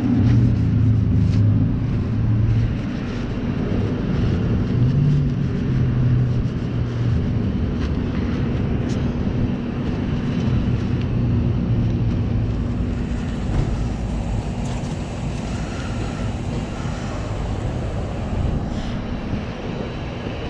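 A vehicle engine running steadily, with wind rumbling on the microphone.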